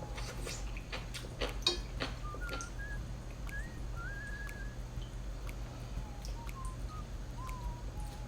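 Eating sounds: a few sharp clicks and smacks in the first two seconds. Short, high chirping whistle-like tones come and go throughout, over a steady low hum.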